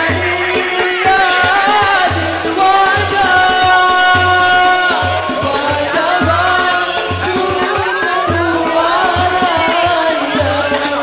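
Islamic devotional song (sholawat) sung by a voice holding long wavering notes, over a repeated low frame-drum beat and rattling jingles.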